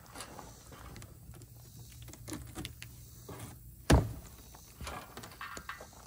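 Large cardboard shipping box being handled and its top flap pulled open: scattered scrapes and light clicks, with one sharp thump about four seconds in.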